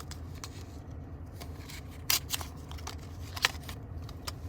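A squishy's plastic packaging being opened by hand: rustling and crackling, with two sharper snaps, about two seconds and three and a half seconds in.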